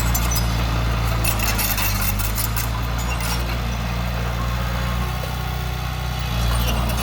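Heavy machinery's diesel engine running steadily, with light metallic rattling over it in the first half and the engine note swelling slightly near the end.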